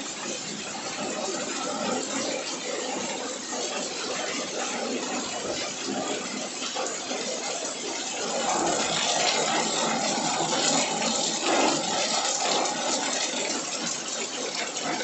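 Heavy rain pouring down steadily in a downpour, growing a little louder about halfway through.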